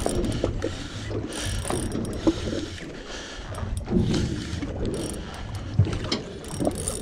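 Spinning reel being cranked during fast jigging, its gears whirring and clicking unevenly with the rod's jerks.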